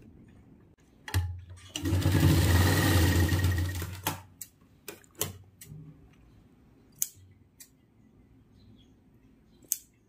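Sewing machine stitching a short seam, running steadily for about three seconds. Then come several sharp snips and clicks from scissors trimming the thread.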